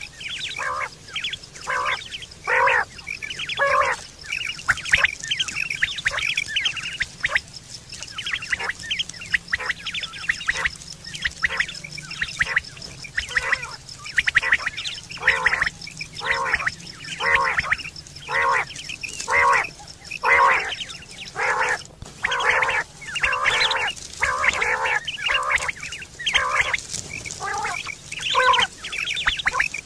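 Common quail calling in a fast series of short repeated notes, about one and a half to two a second, with a faint steady high tone underneath.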